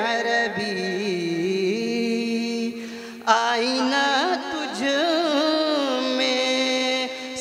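A man singing a naat through a microphone, drawing out long ornamented notes that slide between pitches. About three seconds in he breaks off for a moment, then comes in loudly with a new phrase.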